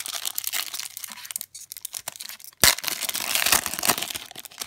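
Foil wrapper of a Topps trading card pack being torn open and crinkled, with a sharp loud rip a little over two and a half seconds in.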